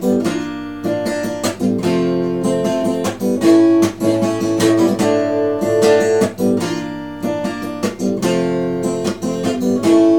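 Acoustic guitar strummed in a steady rhythm, chords ringing between the strokes, with no voice: an instrumental bridge between choruses of the song.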